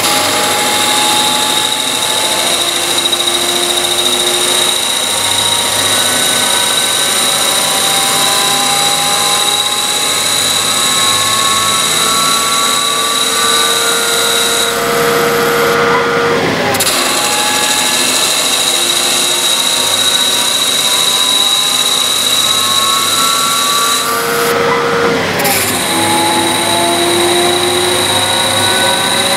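CNC lathe spindle and its cut into a metal bar under constant surface speed: a steady high whine with a motor tone that slowly rises in pitch through each pass as the spindle speeds up, then drops suddenly twice, about halfway through and near the end, as the spindle slows for the next pass.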